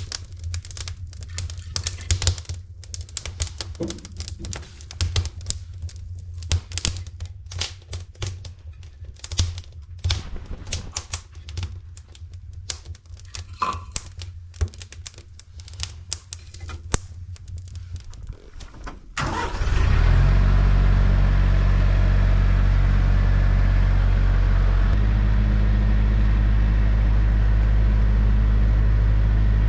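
Rapid, irregular clicking and knocking over a low hum. About two-thirds of the way through, this gives way abruptly to an engine running steadily, with a loud low drone.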